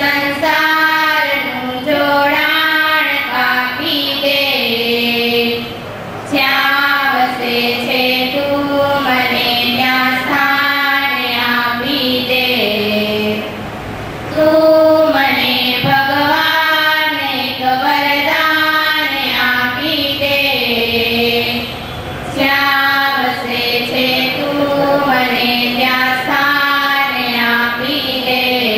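A group of girls singing a prayer together, sung in long phrases broken by short pauses about every eight seconds.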